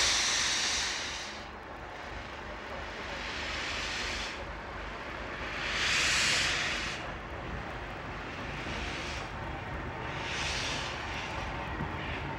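Bulleid Pacific steam locomotive letting off steam in three long hisses about five seconds apart, over a steady low rumble.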